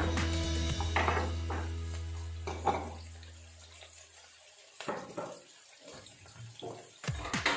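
Chopped onion sizzling in a hot frying pan, a steady hiss with a few small pops. Background music plays over it and fades out about halfway through.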